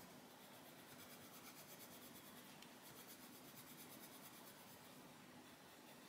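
Faint, steady scratching of a Faber-Castell Polychromos coloured pencil shading on paper.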